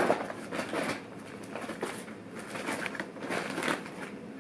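Scattered light clicks and rustles of small tools being handled on a fly-tying bench while a bodkin is picked up.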